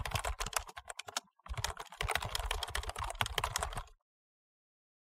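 Computer keyboard typing sound effect: a fast run of key clicks with a brief pause a little over a second in, stopping abruptly about four seconds in.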